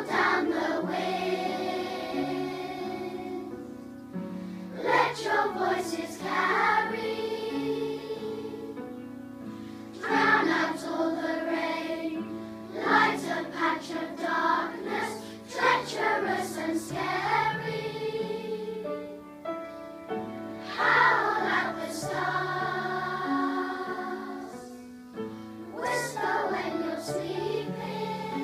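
A large choir of primary-school children singing a song together in phrases, with a held low accompaniment beneath.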